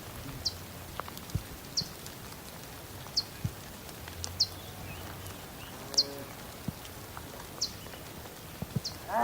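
Steady rain hiss with scattered drips. A bird gives short, high, falling chirps about once a second. A faint low call sounds about six seconds in, and a cow starts a loud moo at the very end.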